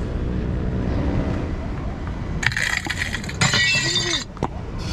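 Glass cracking and shattering in two bursts about a second long, over a steady low rumble of wind on the microphone.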